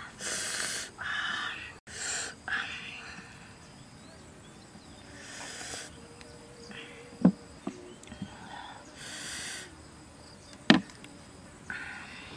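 Crisp rustling and crackling of fresh lettuce leaves being torn and folded by hand around a filling, in short bursts. Two sharp clicks, the loudest sounds, come about three and a half seconds apart in the second half.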